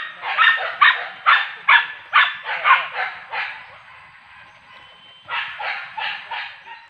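Hunting dogs barking in quick, repeated runs, about two to three barks a second. A burst of about nine barks is followed by a short pause, then a few more barks.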